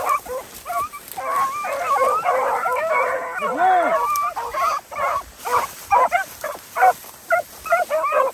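A pack of beagles giving voice on a track in thick cover, many hounds baying at once with their calls overlapping. From about halfway through this thins into separate short, quick barks and yips.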